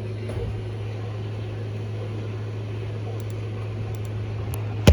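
Steady low electrical hum with hiss over a weather radio broadcast carrying no speech, poor-sounding reception, with a sharp knock right at the end.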